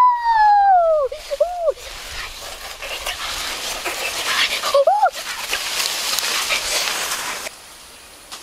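A boy's high, wordless vocal call sliding down in pitch in the first second, followed by two short yelps. In between, leaves rustle as they are handled.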